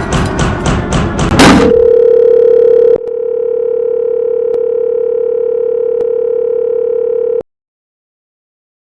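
Electronic music with a quick, even beat ends in a loud burst about a second and a half in. A steady, buzzy electronic tone like a dial tone follows, with a few faint clicks, and cuts off suddenly near the end.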